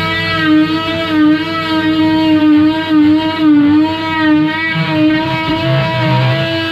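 Oscillating multi-tool cutting into a fibreglass coach roof: a steady buzzing whine whose pitch dips and recovers as the blade is pressed into the cut.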